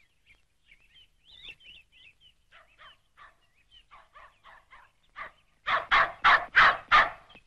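Faint bird chirping, then a dog barking rapidly, about six loud barks in a second and a half, starting near the end.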